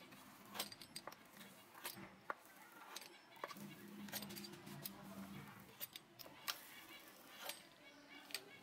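Pizza cutter wheel rolling through soft dough against a wooden board: quiet scraping cuts with scattered sharp clicks of the wheel and handle.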